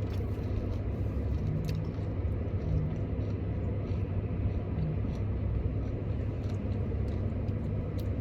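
Steady low rumble of a car's idling engine heard from inside the cabin, with a few faint clicks and rustles of food being handled.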